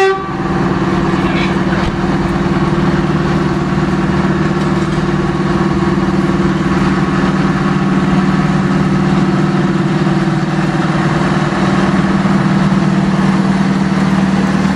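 Diesel shunting locomotive 'Helen' running steadily with a low, even engine hum as it approaches slowly. A horn toot cuts off right at the start.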